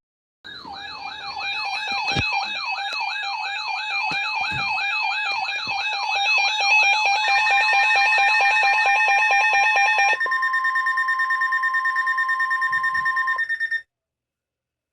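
Electronic alarm siren warbling up and down about twice a second, with steady alarm tones layered over it. About ten seconds in it changes to a rapidly pulsing steady tone, which cuts off sharply near the end.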